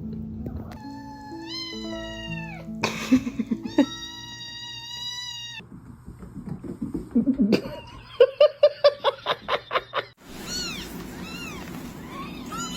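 Cat meowing: two long drawn-out meows in the first half, the first rising in pitch partway through. These are followed by a run of quick repeated calls and then short rising-and-falling mews near the end, over background music.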